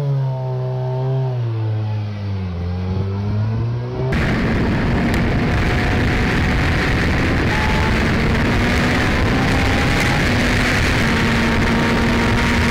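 A racing sidecar outfit's engine is revved on the spot, its pitch rising and falling. About four seconds in, this gives way to heavy wind rush on the sidecar-mounted camera at track speed, with the engine's steady high note faint beneath it.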